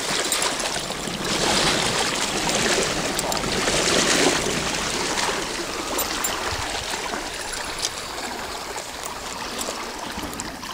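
Trout stream water running and trickling, swelling louder about four seconds in and then easing off.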